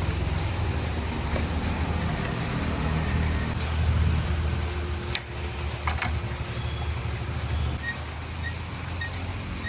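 A motor running with a steady low hum, and two sharp clicks about five and six seconds in.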